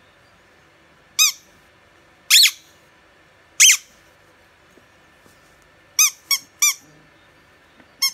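Blue rubber squeaky toy ball squeaking as a pug puppy nudges it. The high-pitched squeaks come in three singles about a second apart, then a quick run of three, and one more at the end.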